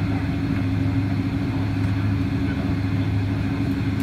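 Steady cabin drone inside a Boeing 777-200 on the ground: an even rush with a low hum and a second, higher steady hum.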